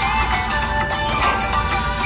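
Recorded music playing with a steady beat and held tones.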